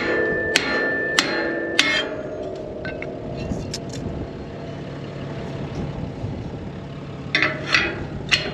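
Hammer blows on a worn steel sweep of a soil finisher (field cultivator) shank, knocking the sweep off to replace it: four ringing metal strikes about half a second apart. Then come a few light clicks, and near the end a brief clatter of steel as the loose sweep is handled.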